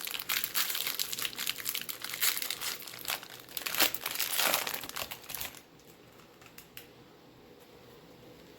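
Foil wrapper of a jumbo pack of baseball cards being torn open and crinkled in the hands, a dense crackling that stops about two-thirds of the way through.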